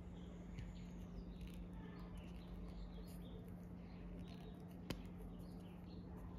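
Small plastic Kinder Joy toy pieces handled and fitted together: faint rubbing and short high squeaks, with one sharp click about five seconds in, over a steady low hum.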